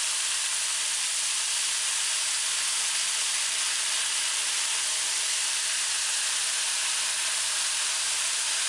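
Floured chicken pieces deep-frying in hot oil in a saucepan: a steady, even sizzle.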